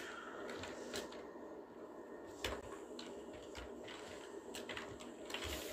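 Faint clicks of a computer keyboard and mouse, a few scattered taps over a low steady hiss.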